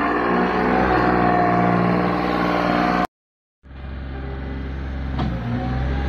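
Thomas LB 85 skid steer loader's engine running under load while it works dirt, broken by a half-second silence about halfway through, then running steadily again with a faint knock near the end.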